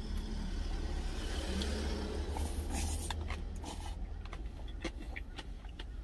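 Truck engine idling with a steady low rumble, heard inside the cab. Over it come the mouth sounds of a big mouthful being taken and chewed, louder about two and a half seconds in, and a few sharp clicks in the second half.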